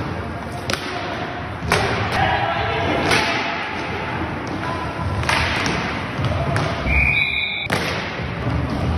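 Inline hockey play: sticks and the plastic puck knocking against the floor and the boards, with several sharp knocks, under a bed of players' voices. A short, high whistle sounds about seven seconds in.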